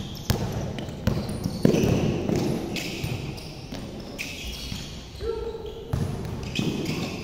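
Basketball game play: a ball bouncing on the hard court in sharp repeated thuds, with short high sneaker squeaks from players running.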